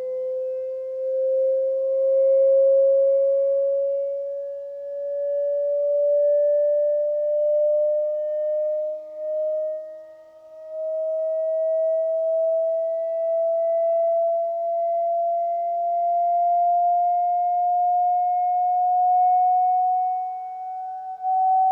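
A pure test tone played through a Medion 65-inch TV's built-in speakers, gliding slowly and steadily upward in pitch, with fainter extra tones alongside it. The sweep is run to find resonances that make the set squeak. The level dips briefly about halfway through.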